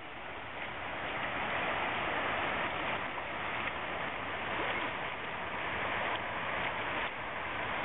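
Fast river water rushing steadily past a cliff, with white water washing against the rocks at its foot.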